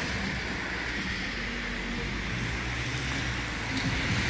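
Road traffic noise: a steady rumble and hiss, with a low engine hum that comes in about halfway through and grows louder near the end.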